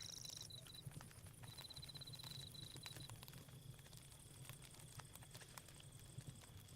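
Faint night insects: crickets chirping in quick trilled bursts, then a steady high insect whine from about three seconds in, over the scattered pops and crackles of a campfire.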